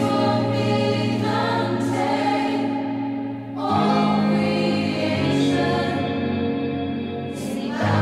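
Worship song with a choir singing long held chords, the chord changing about halfway through.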